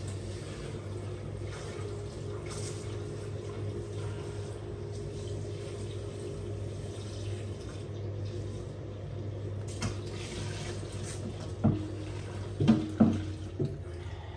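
Kitchen tap running water into a plastic air fryer drawer held in a stainless steel sink, a steady splashing rush. A few sharp knocks come near the end as the drawer is moved about in the sink.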